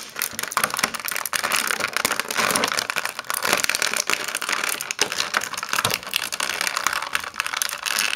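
Clear plastic packaging tray crinkling and crackling with rapid clicks and snaps as an action figure is pulled out of it.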